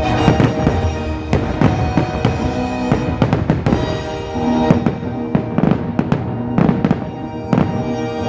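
Fireworks going off in a rapid, irregular string of bangs and crackles, several a second, over a show's music soundtrack.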